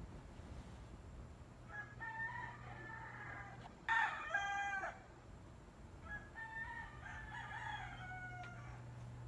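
Roosters crowing three times: one crow about two seconds in, a louder, shorter one about four seconds in, and a long drawn-out one later.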